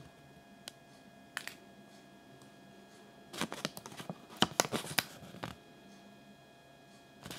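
Thin folded paper leaflet crinkling and rustling as fingers handle it: a couple of single ticks at first, then about two seconds of dense crackling in the middle, over a faint steady hum.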